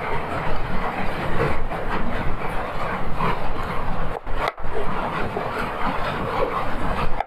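Kitchen knife slicing through raw chayote held in the hand, making light scraping cuts over a steady rumbling hiss.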